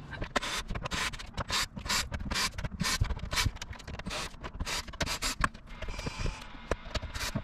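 Cordless drill working the screws along a metal piano hinge on a plywood bed frame, in a quick irregular string of short bursts, several a second.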